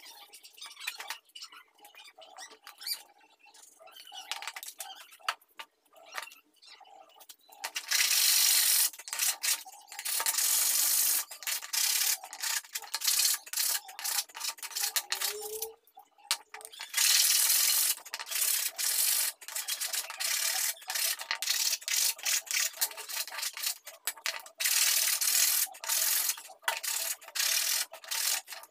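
Light handling and small knocks at first, then a flat steel hand tool scraping back and forth over a small piece of wood, smoothing it: quick, dense scratchy strokes in runs with brief pauses, starting about a third of the way in.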